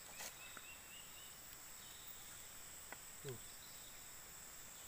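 Faint, steady high-pitched insect drone from the riverside vegetation, with a short rising run of chirps near the start and one brief low falling sound about three seconds in.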